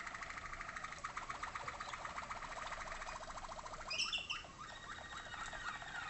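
Waterslager (Malinois) canary song: a long, low, rapid rolling trill, with a brief louder, higher phrase about four seconds in.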